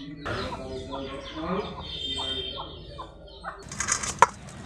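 Chickens clucking, then about three and a half seconds in a short rustling flurry topped by one sharp tap.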